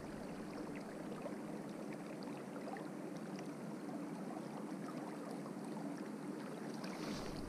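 Faint, steady rush of river water flowing and lapping, with small trickling ticks scattered through it.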